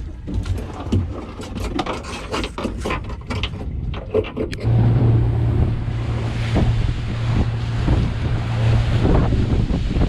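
A clatter of knocks and taps in the first half, then from about halfway the panga's outboard motor running steadily, with wind noise on the microphone.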